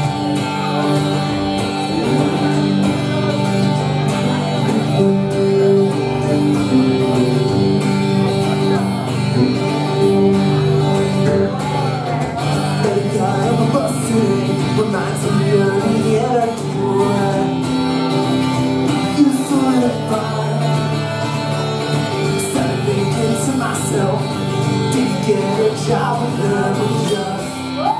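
Live ska band playing at full volume: electric guitars, bass and drum kit with saxophones and trombone, and a voice singing over it.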